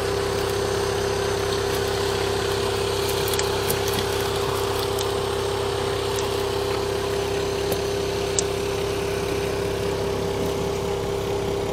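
A motor running steadily: a constant hum with one strong, unchanging tone, and a few faint clicks in the middle.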